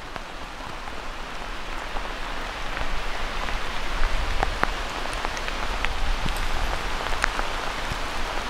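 Steady rain falling, an even hiss with scattered sharp ticks of single drops landing close by.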